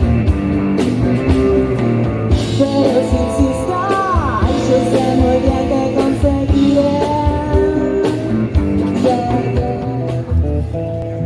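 Live rock band playing, with guitars, bass, drums and a lead singer. About ten seconds in, the music thins out to a mostly guitar passage.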